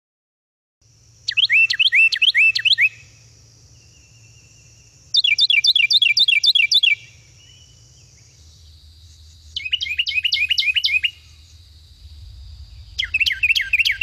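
Carolina wren singing: four loud songs a few seconds apart, each a fast, rolling run of the same phrase repeated about seven times. The last song runs past the end.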